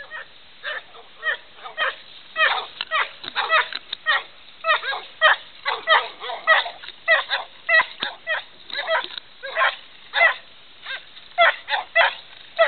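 Boar-hunting dogs barking over and over, about two barks a second, as they hold a boar at bay.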